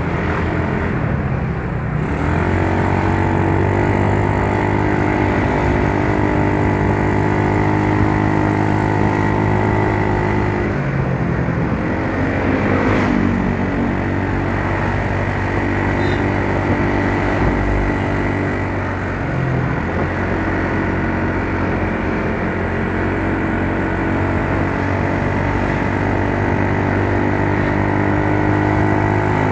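Motor scooter engine idling steadily while stopped in traffic. Its steady note breaks off and shifts briefly about eleven seconds in, then settles back to the same even idle.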